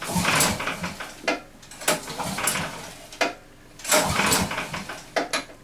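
The 20-horsepower engine of a motor towing sled being cranked in repeated short bursts of turning over and rattling, not yet running.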